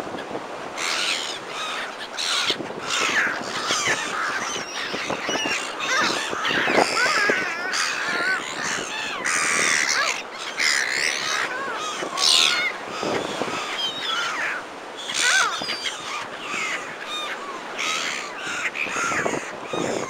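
A flock of black-headed gulls calling over and over, many overlapping calls clamouring for food, with wind and breaking surf hissing underneath.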